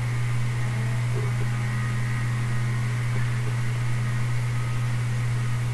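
Steady low electrical hum, like mains hum picked up in the recording chain, with faint steady higher tones above it.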